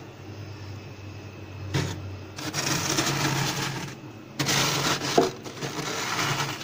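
Plastic ruler scraping thick fluffy frost off a freezer's ceiling in two long strokes, with a sharp crack partway through the second.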